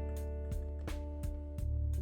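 Background music led by plucked string notes at a steady pace.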